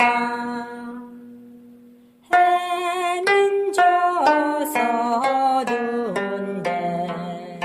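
Gayageum, a Korean plucked zither, played solo: a held note dies away, and about two seconds in a new phrase of plucked notes starts, several of them bent in pitch after the pluck.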